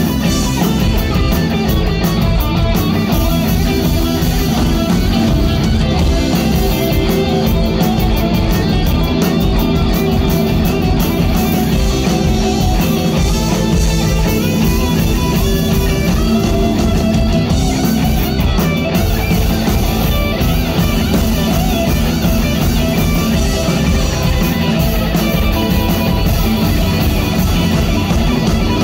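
Live rock band playing loud and steady, with guitars to the fore.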